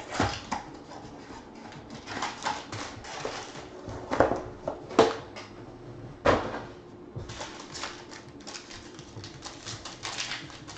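Foil trading-card packs crinkling and crackling as they are handled and worked open by hand, in irregular sharp rustles with a few louder crackles.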